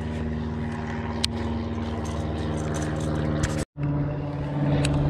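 Propeller airplane passing over, its engine droning steadily at one pitch, with a brief break in the sound about three and a half seconds in.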